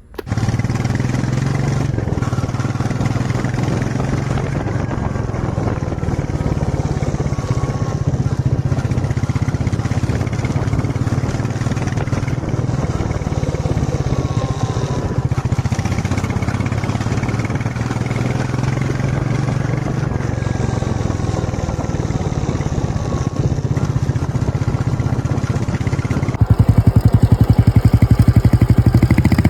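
Royal Enfield Meteor motorcycle engine running steadily, growing louder and coarser near the end.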